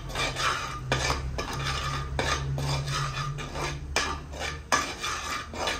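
A metal spoon scraping and stirring dabeli masala as it fries in oil in a non-stick kadai, in repeated strokes about twice a second. A steady low hum runs underneath.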